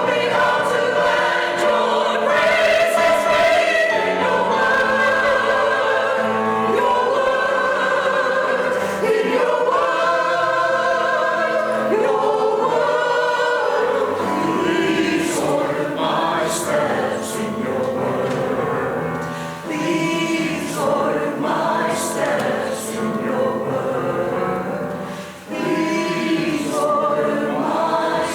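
Church choir singing a hymn or anthem, several voices together with vibrato on held notes.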